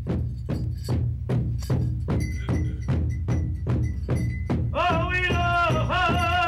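Large rawhide powwow drum struck in unison by several drummers with padded beaters, a steady beat about three strikes a second. About five seconds in, high-pitched singing joins over the drum.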